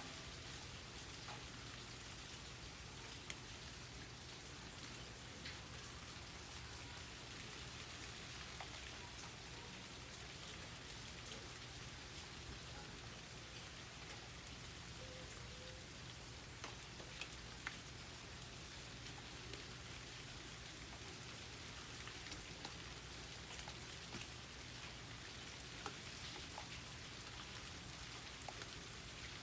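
Steady light rain falling, with scattered sharper ticks of single drops striking close by.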